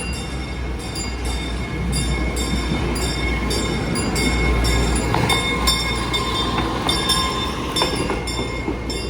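Roller coaster train running along its steel track: a steady rumble with many short clicks and a thin whine from the wheels.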